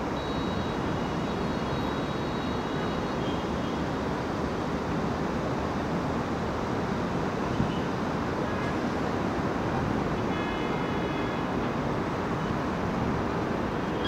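Steady running noise of heavy construction vehicles and street traffic, with a faint high whine twice, near the start and about ten seconds in.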